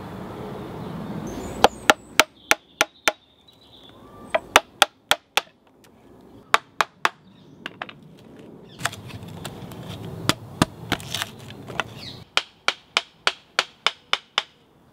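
Hand tools striking green oak: sharp wooden knocks in several runs of blows, about three a second, with short pauses between runs.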